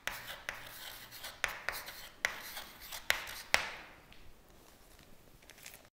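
Chalk writing on a chalkboard: sharp chalk taps and short scratchy strokes, with a few louder taps, fading out after about three and a half seconds.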